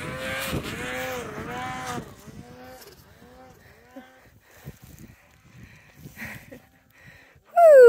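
Snowmobile two-stroke engine revving up and down, its pitch rising and falling with the throttle for about two seconds before fading to a faint, intermittent drone as the sled moves off. Near the end comes a sudden loud engine note that drops steeply in pitch, as a sled passes close.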